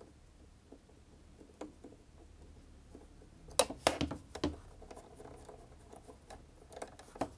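Small clicks and taps of a screwdriver and metal presser-foot parts being handled on a sewing machine, with a cluster of sharper clicks about halfway through.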